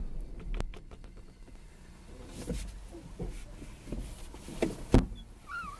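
Scattered knocks and thumps picked up in a car, a few sharp clicks in the first second and the loudest thump about five seconds in, with a short wavering squeak just before the end.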